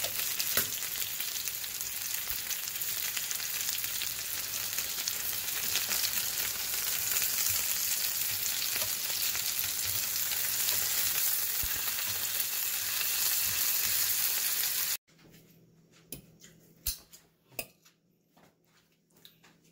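Tandoori chicken drumsticks sizzling as they fry in oil in a pan, a steady hiss that cuts off suddenly about fifteen seconds in. After that, only a faint low hum and a few light clicks remain.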